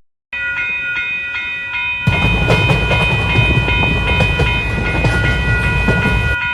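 Train sound effect: a steady high tone of several notes sounds first, then about two seconds in the heavy rumble and clatter of a train passing joins it at full loudness.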